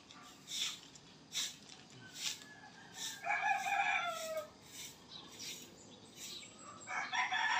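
A rooster crowing twice: one crow about three seconds in, and a second beginning near the end. Short sharp ticks come about every two-thirds of a second.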